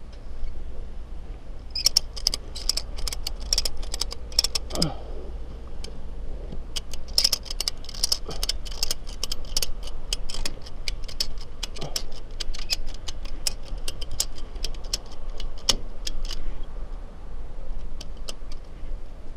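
Metal jingling and rattling in quick irregular runs, like keys or loose metal parts shaken by a moving vehicle, over a low steady drone. The jingling stops about three seconds before the end.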